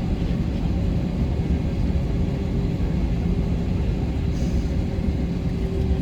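Steady rumble inside the cabin of an Airbus A321ceo rolling on the ground just after landing, with engine and wheel noise; a steady hum grows stronger about four seconds in.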